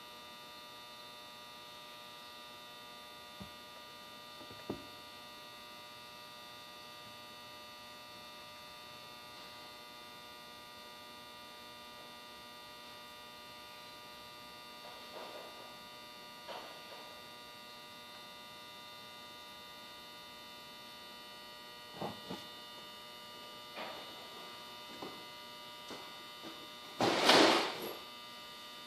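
Steady electrical hum made of many fixed tones, with scattered faint clicks and knocks. Near the end comes a louder burst of hissing noise lasting about a second.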